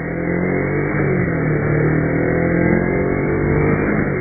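Kawasaki Ninja motorcycle engine pulling under acceleration, its note climbing in pitch, with a brief dip about a second in before it climbs again.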